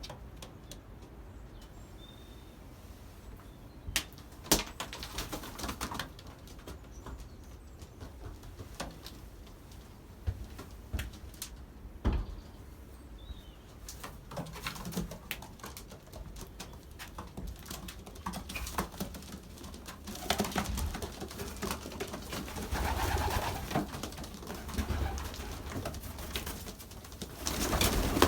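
Young racing pigeons cooing and stirring in their loft, with occasional wing flaps and scattered sharp knocks. It gets busier in the last several seconds.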